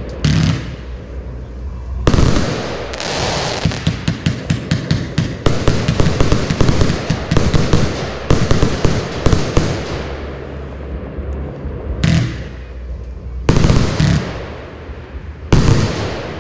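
227-shot compound firework barrage cake firing. A dense run of rapid shots and bursts, several a second, fills the middle. A few single heavy bangs follow near the end.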